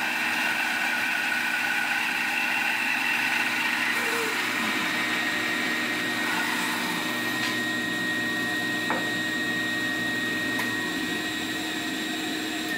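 Bandsaw running while its blade finishes a resaw cut through a board held in a sled; the cutting sound fades about four seconds in and the saw runs on with a steady hum, with a few faint clicks.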